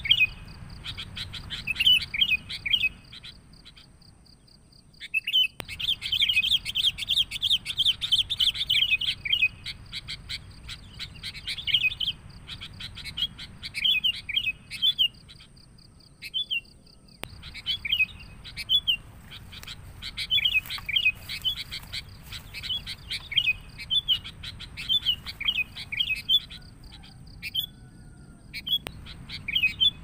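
Sooty-headed bulbuls (kutilang) calling in a busy, rapid run of short chattering chirps, used as a trapping lure call. The chirping breaks off briefly twice, around four seconds in and again past the middle.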